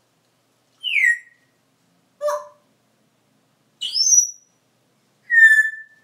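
African grey parrot whistling and calling: four separate calls, a falling whistle about a second in, a short lower call, a rising whistle, and a steady held whistle near the end.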